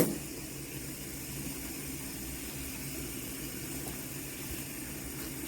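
Fidget spinners whirring steadily after being flicked, with a sharp click right at the start.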